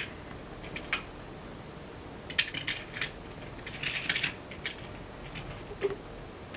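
Light metallic clinks and taps of small metal parts and hand tools being handled, in a few scattered clusters of clicks.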